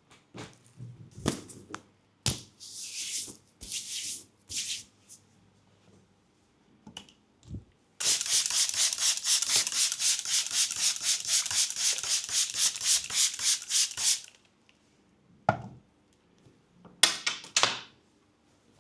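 Brisk rubbing of hands during a leg massage: a few short swishes and knocks, then about six seconds of fast, even rubbing strokes at roughly six a second. A thump and a few more swishes follow near the end.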